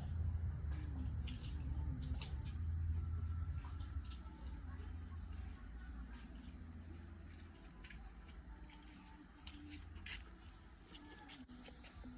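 Insects trilling steadily in a high, rapidly pulsing chorus, with scattered small clicks and a low rumble that fades after the first few seconds.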